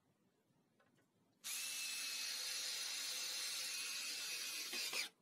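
Cordless drill driving a screw into a wooden beam: a steady motor whine starting about a second and a half in, running for about three and a half seconds, then stopping.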